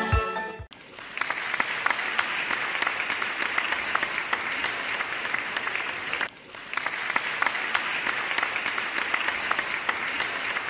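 Crowd applause: many hands clapping in a dense, steady patter. It begins just under a second in as music cuts off, and dips briefly about six seconds in before resuming.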